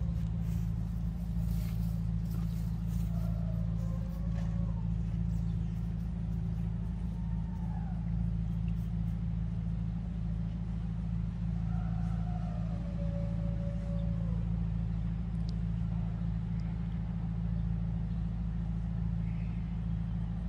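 Steady low drone of a neighbour's motor-driven equipment running. Faint falling wails rise above it a few times.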